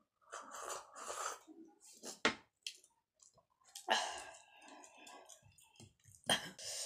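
Close-up mouth sounds of eating: slurping from a small steel bowl near the start, then chewing with a few sharp clicks and smacks.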